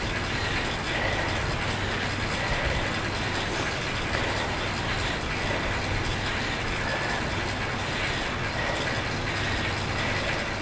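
Indoor bike trainer and drivetrain running steadily under constant pedaling at a 90–105 RPM cadence: an even mechanical whir with a low hum.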